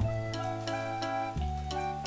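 Background music: a cheerful instrumental track with sustained notes, a bass line and a light ticking beat.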